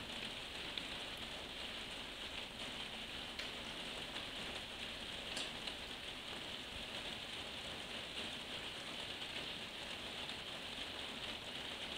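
Steady rain falling, an even hiss with a few faint drop ticks here and there.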